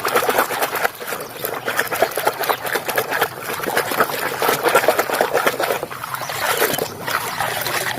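Water running and splashing unevenly as a muddy toy vehicle is washed clean.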